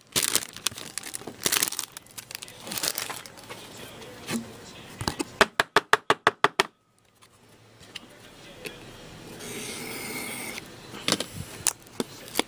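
Foil wrapper of a hockey card pack crinkling and tearing as it is opened, with the cards inside rustling. About halfway through comes a quick run of some ten sharp clicks.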